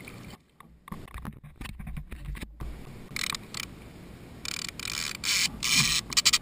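Fishing reel's drag buzzing as a hooked fish pulls line off against the bent rod: short bursts about three seconds in, then longer and louder from about four and a half seconds.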